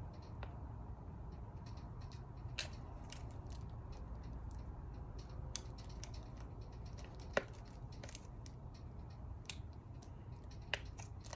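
Scattered small clicks and scratches of hands picking at a stubborn plastic safety seal on a skincare container, with one sharper click about seven seconds in, over a low steady hum.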